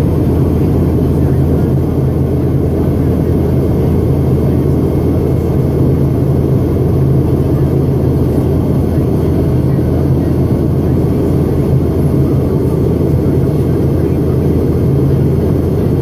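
Jet airliner cabin noise while airborne after takeoff: a loud, steady low drone of the engines and airflow with a constant hum underneath.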